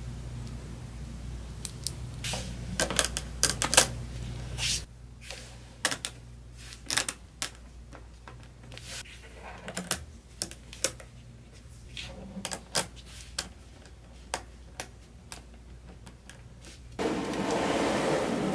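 Small magnetic balls clicking as they snap together, a scattering of sharp clicks while a wheel built from magnetic balls is pressed onto a magnetic-ball car body. Near the end a steady rubbing noise sets in as the magnetic-ball car moves across the table.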